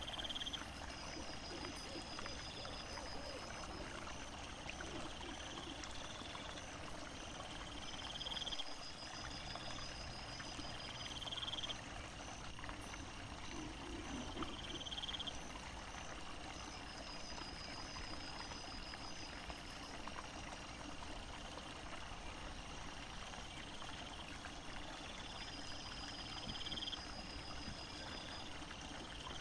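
Faint night-time chorus of small calling animals: soft high chirps repeating about every second and a half over a steady hiss.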